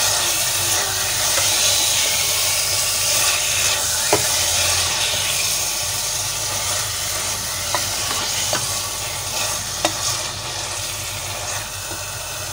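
Onion, tomato and spice masala sizzling in hot oil as it is stirred and fried with a spoon: a steady sizzle with a few light clicks of the spoon against the pan.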